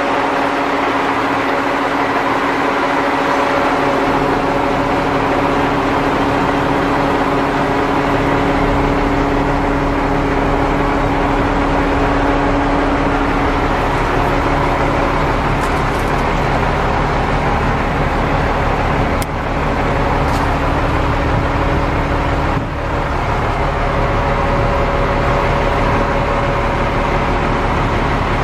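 International 4900's DT466 diesel engine idling steadily, with a humming tone that fades about halfway through.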